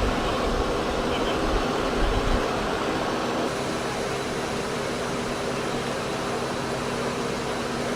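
C-130 turboprop engines running steadily: an even rush with several fixed droning tones, and a heavier low rumble for the first two seconds or so.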